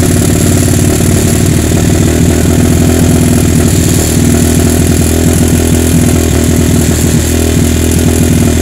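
Kawasaki KLX 150's single-cylinder four-stroke engine running steadily with the throttle held about a quarter open, while the PE 28 carburetor's air screw is turned to find the mixture setting that gives the highest RPM.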